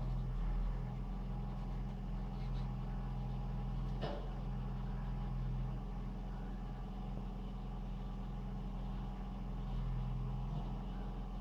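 JCB 3DX backhoe loader's diesel engine running steadily, with a single short knock about four seconds in.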